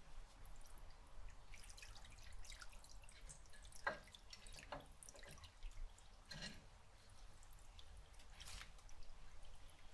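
Faint trickle of water poured from a glass jug over a moss-covered rock into a shallow aquarium, with irregular drips and plinks; the clearest plinks come about four and six and a half seconds in.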